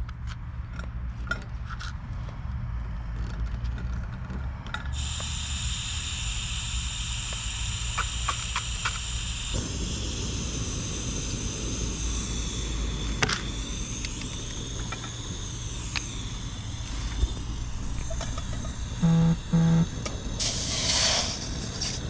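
Blue butane cartridge camping stove being lit with matches: a few small clicks, then a steady gas hiss starts suddenly about five seconds in and keeps running as the burner heats a steel pot. A steady low rumble sits underneath, and two short low beeps sound near the end.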